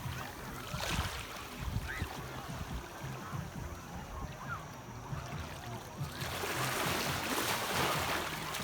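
Ocean surf on a beach: waves wash in, with a bigger wave breaking and rushing up about six seconds in, over a low rumble.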